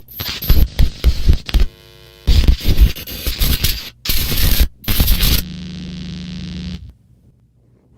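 Loud crackling static and noise that stutters on and off with brief dropouts, like a broadcast signal breaking up. A steady buzzing hum with hiss follows and cuts off suddenly about seven seconds in.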